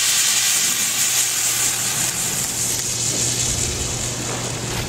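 A Mentos-and-diet-soda eruption forced out through the angled nozzles of a homemade Hero's engine bottle: a steady, spraying hiss of foaming soda jets that is loudest at first and slowly eases off as the nucleation runs its course.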